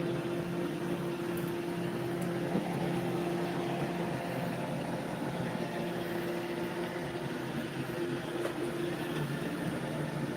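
Roomba robot vacuum running steadily while cleaning up paper shreds: an even motor hum with a few held tones, broken by a handful of faint clicks.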